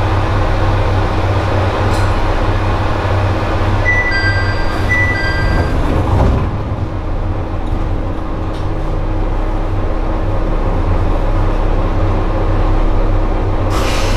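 Diesel railcar standing at a station with its engine idling in a steady low hum. A two-note chime alternates high and low twice about four seconds in, followed by a brief rush of sound, and a short hiss comes near the end.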